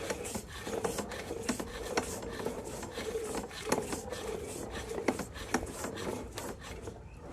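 Sewer inspection camera and its push cable scraping and rubbing along the inside of a 4-inch cast iron sewer pipe as it is fed through, with many scattered clicks and knocks. A faint steady hum runs underneath.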